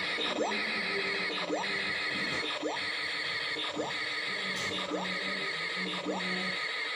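Homemade hooter, a toy's sound-tune circuit board driving a small speaker, playing a repeating electronic warbling tone with a quick rising sweep about once a second.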